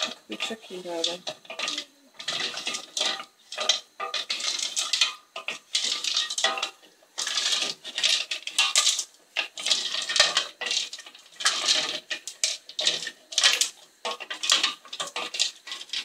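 Stones being stirred around in a saucepan of milk with a spoon: irregular scraping and clattering of stone and spoon against the metal pan, with the liquid sloshing.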